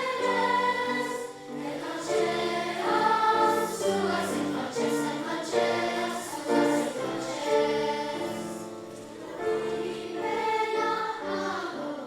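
A children's choir singing in several parts, holding long chords that change every second or so.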